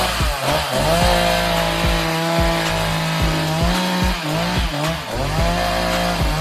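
Gas chainsaw revving up to full throttle and cutting limbs, easing off briefly about halfway through and again a little later before revving back up.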